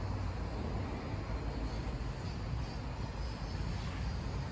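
Steady low rumble of outdoor background noise, with no ball strikes.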